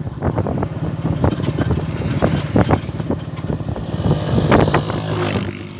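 Vehicle engine running while driving over a rough dirt track, with frequent knocks and rattles from the bumps and wind on the microphone.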